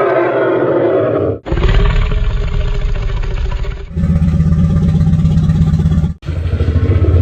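Synthetic Tyrannosaurus rex roars made from elephant and tiger recordings slowed down and pitched down. Several deep, rumbling roars play back to back, each breaking off suddenly before the next begins, at about one and a half, four and six seconds in.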